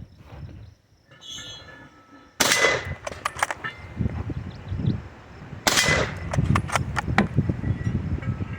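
Two shots from a Krag-Jorgensen bolt-action rifle, the first about two and a half seconds in and the second about three seconds later, each ringing briefly. Each shot is followed by a run of sharp clicks as the bolt is worked.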